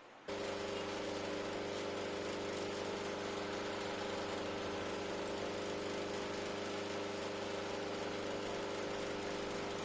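An electric power tool motor running steadily at a constant speed, with a hum-and-whine of several steady tones over a hiss. It starts abruptly a moment in.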